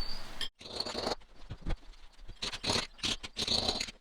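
Irregular scraping, rattling and knocking as brick rubble, slate and cement are chipped out of a filled-in fireplace opening with a hammer.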